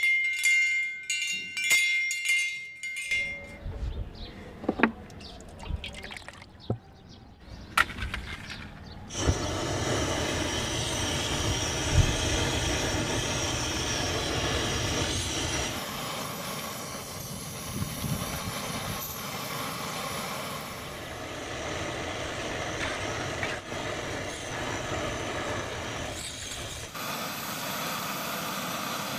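Background music ends in the first few seconds, followed by a few clicks and knocks. About nine seconds in, a small burner on a portable gas cylinder is lit and burns with a steady hiss.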